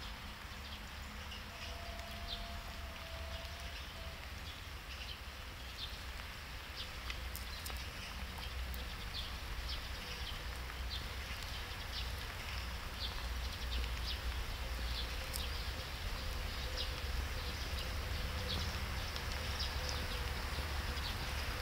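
Large land snail rasping at a piece of chocolate: a stream of tiny, crisp, irregular clicks that grows denser from about a third of the way in, over a steady low rumble.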